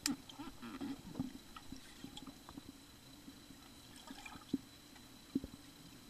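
Muffled underwater sound of a swimming pool heard through a submerged camera: soft bubbling and scattered small pops from a child moving in the water, over a steady low hum. The pops are busiest in the first second or so, with two sharper ones near the end.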